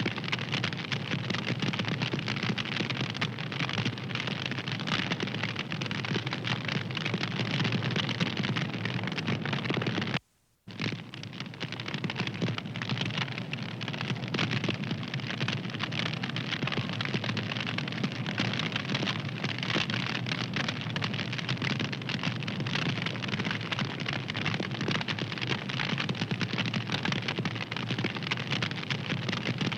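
Fireplace fire crackling, a dense run of small pops and snaps. It cuts out for about half a second around ten seconds in, then comes back.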